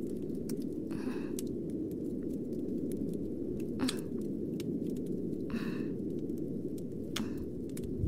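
Crackling wood fire ambience: a steady low rumble with scattered sharp pops and clicks.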